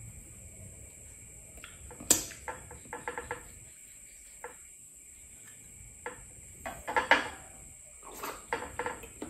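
Eating by hand: a sharp clink of dishes about two seconds in, then short bursts of crackling and crunching, loudest around seven seconds, from crispy fried milkfish spring rolls being eaten.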